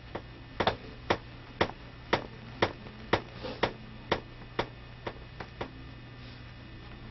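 About a dozen sharp clicks, evenly spaced at about two a second, stopping about two-thirds of the way through, over a steady low hum.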